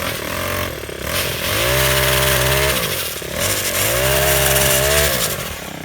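Small four-stroke Ryobi trimmer engine driving a 12-inch chainsaw attachment, revved to full throttle twice with a drop back between, as when cutting brush.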